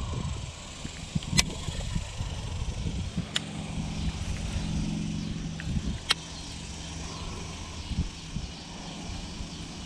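Fishing gear handled aboard a kayak: three sharp clicks from the baitcasting rod and reel over a low wind rumble on the microphone, with a faint steady hum from about four seconds in.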